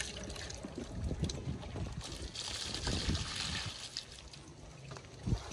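Water being poured and trickling into a container of live fish, with small knocks and splashes. The pouring hiss is steadiest between about two and four seconds in.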